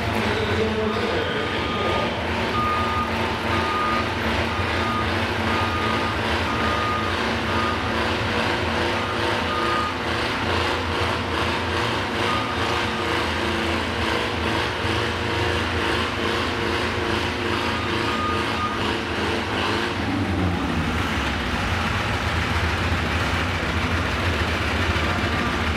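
Tractor engines idling at low speed while a backup alarm beeps in a steady run of short pulses, stopping and starting again a few times. About twenty seconds in, one engine note drops lower as it slows.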